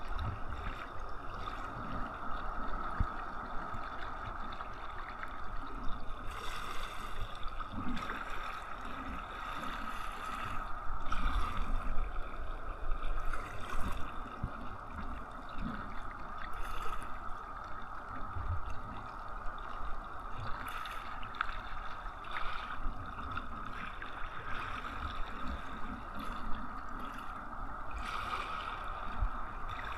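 Seawater sloshing and gurgling against a kayak hull as it moves through the water, with a brief splash every few seconds and a steady hum underneath.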